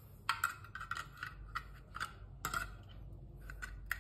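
Light metallic clicks and scrapes of a portable butane camping stove's aluminium body and fold-out pot supports being handled while a butane canister is fitted to it. There is a quick run of short clicks, which thin out after about two and a half seconds, and then two more near the end.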